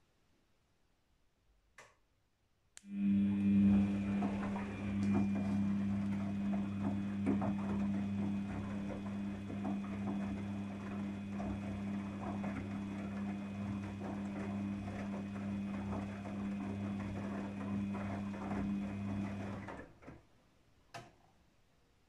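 Daewoo DWD-FT1013 front-loading washing machine running during a 40°C synthetics wash: a steady hum with rattling sets in about three seconds in after a faint click, and stops suddenly about seventeen seconds later.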